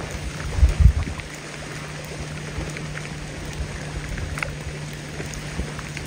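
Outdoor lakeshore ambience: water and wind noise, with gusts buffeting the microphone about a second in and a steady low drone underneath.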